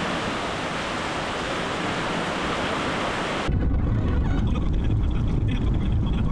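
Heavy rain from a passing thunderstorm, a steady hiss. About three and a half seconds in it cuts to a louder, deeper rushing noise of the storm with wind on the microphone.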